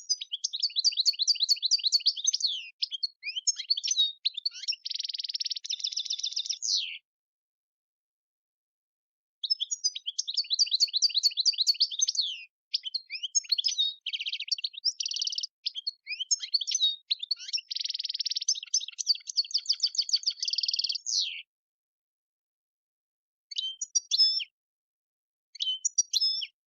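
European goldfinch singing in long, fast twittering phrases of rapid trills and buzzy notes. One phrase runs for about seven seconds and a longer one starts after a short pause. Two brief snatches of song come near the end.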